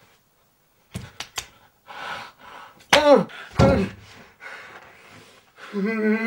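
A man sobbing: a few sharp knocks about a second in, then loud breaking cries that fall in pitch, with gasping breaths between, and a long moan near the end.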